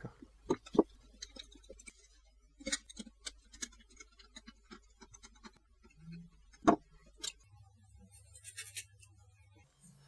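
Small scattered clicks and taps of metal parts being handled: nichrome heater coil leads fitted into screw terminals and a screwdriver tightening a terminal screw, with one sharper click about two-thirds of the way through.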